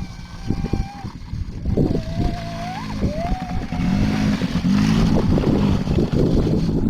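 Small ATV engine running and revving, its pitch rising and falling, getting louder about four seconds in.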